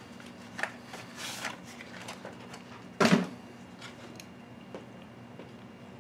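Small clicks, taps and rustling from a new tube of titanium white oil paint being handled and taken out of its box, with one louder knock about three seconds in, over a faint steady hum.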